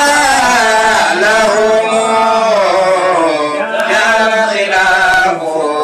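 A man's voice chanting a devotional Mawlid chant into a microphone, in long held notes that waver and bend in pitch.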